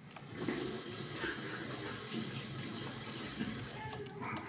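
Kitchen tap running with hands being washed under the stream, fading out near the end.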